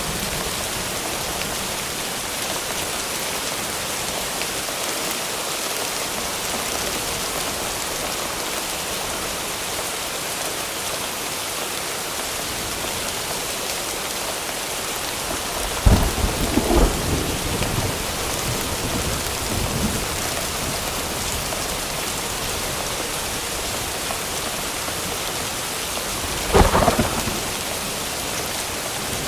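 Steady rain hiss in a thunderstorm. About halfway through, a sharp crack of thunder rumbles on for a few seconds; a second, shorter crack comes near the end.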